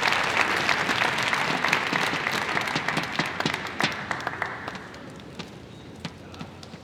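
Audience applauding, dense clapping that dies away about four to five seconds in, leaving a few scattered claps.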